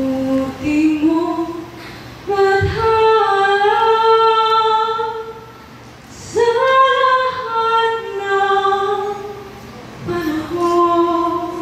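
A woman singing slow, long-held notes without accompaniment, in three phrases with short pauses between them.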